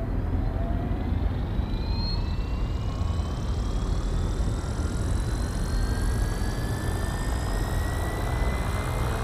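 FlyWing FW450 V2 electric RC helicopter spooling up on the ground: the whine of its electric motor and drive gears climbs slowly and steadily in pitch as the rotor gathers speed, over a steady low rumble.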